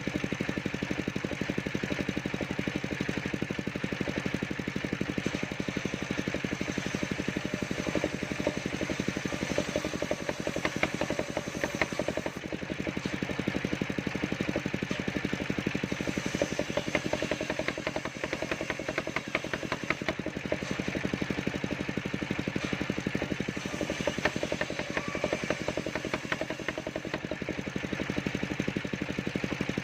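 Engine of a mobile circular sawmill running steadily with a fast, even beat. Its level dips and recovers a few times.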